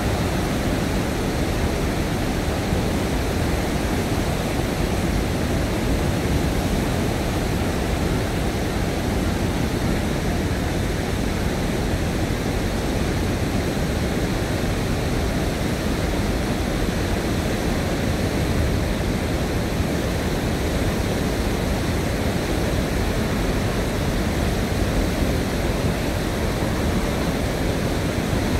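Steady, deep roar of floodwater pouring through a dam's open sluice gates and churning in the turbulent river below, a flood-season release to lower the reservoir level.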